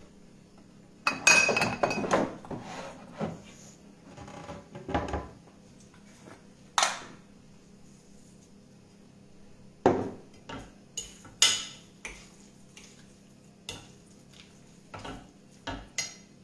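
Kitchen clatter of dishes and utensils being handled, knocked and set down. A dense burst of clattering about a second in is the loudest part, followed by scattered single clinks and knocks, with a quick run of them near the end.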